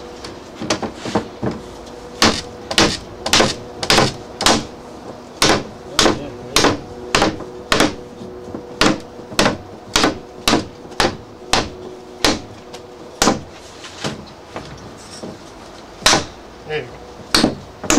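Wooden block knocked repeatedly against the glass of a double-pane vinyl window sash, about two sharp knocks a second, pausing for a couple of seconds near the end.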